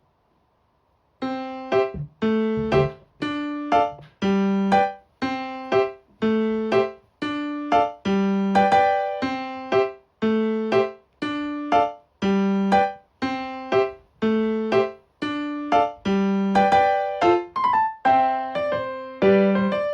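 Background music: a keyboard piece of short, quickly fading chords, about one a second, starting about a second in.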